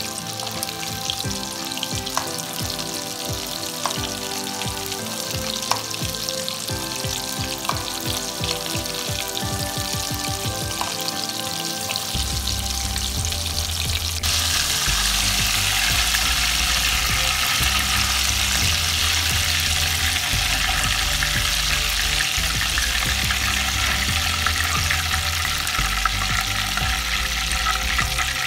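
Batter-coated chicken pieces deep-frying in hot oil, a dense crackling sizzle that gets louder about halfway through.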